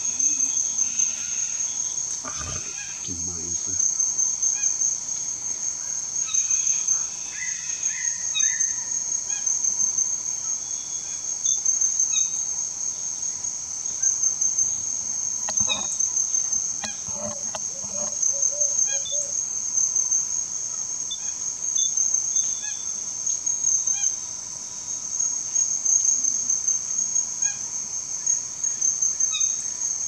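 Loud, steady, high-pitched drone of insects, with a few short animal calls breaking in now and then and a short run of repeated notes a little past halfway.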